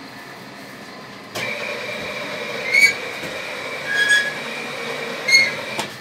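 Machinery switches on abruptly about a second in and runs with a steady metallic grinding. Three short, high squeals rise above it. It stops abruptly near the end.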